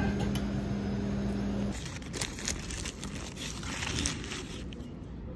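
A steady low hum, then from about two seconds in a foil sandwich wrapper being handled, crinkling in a run of irregular crackles.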